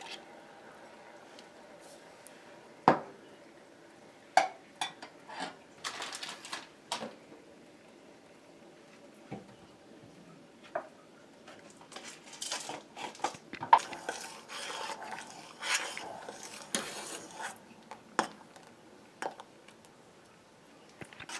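A utensil clinking and scraping against a metal cooking pot while a milk mixture is stirred: scattered single clinks, with a busier stretch of scraping and knocking in the second half.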